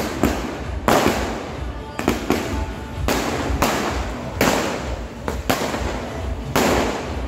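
Fireworks and firecrackers going off one after another: about a dozen sharp bangs in seven seconds, each trailing off in an echoing rumble.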